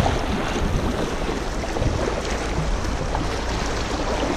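Steady rush of fast, choppy river water running around a kayak.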